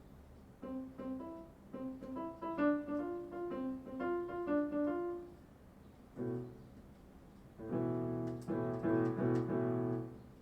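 Yamaha PSR-E363 portable keyboard played on a piano voice: a quick run of single notes, then a chord, then several repeated chords near the end.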